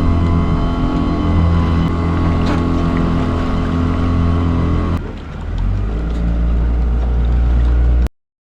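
Motorboat engine running steadily at speed. About five seconds in the sound changes abruptly to a deeper, briefly quieter engine note, and it cuts off suddenly near the end.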